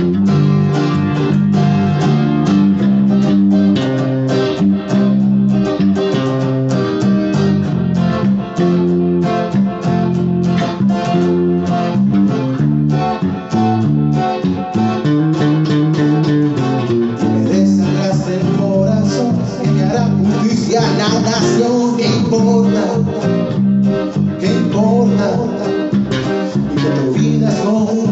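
Instrumental guitar break in a Spanish-language song: quickly plucked guitar notes over a steady bass line.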